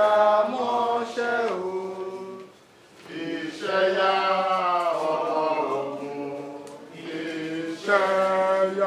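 Melodic chanting by voice, with long held notes that bend up and down in pitch and a brief pause about two and a half seconds in.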